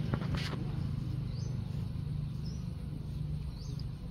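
Outdoor rural ambience: a steady low hum, with a few short, high chirps about a second apart.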